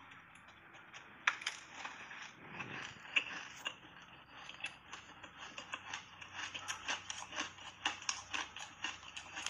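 Soft shaved ice dusted with matcha powder being chewed in big mouthfuls: a run of crackly crunches that grow denser from about halfway through, with a sharp click about a second in.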